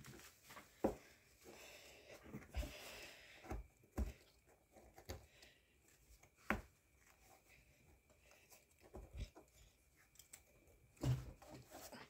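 Faint, scattered scrapes and taps of a plastic digging pick against a plaster dig block, chipping at a rock stuck inside it.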